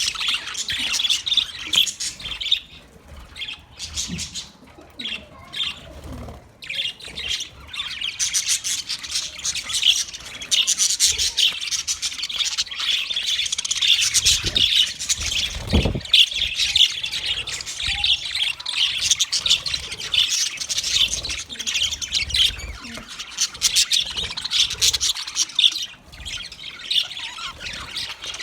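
Budgerigars chirping and chattering, many quick overlapping calls with a few squawks, running on with a brief thinner stretch a few seconds in.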